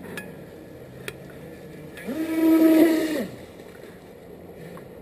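Radio-controlled jet boat's motor and jet drive spinning up quickly about two seconds in, running at a steady whine for about a second, then winding down, over the steady rush of creek water.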